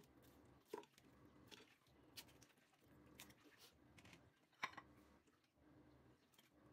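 Faint kitchen handling sounds as raw duck pieces are put by hand into an empty metal stockpot: light shuffling and scattered soft knocks, the two clearest about a second in and just before five seconds in.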